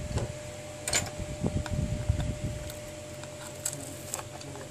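Small clicks and taps of a smartphone's plastic frame and a thin hand tool being handled, with a sharper click about a second in and low knocks of the frame being moved in the first couple of seconds. A faint steady tone hums underneath.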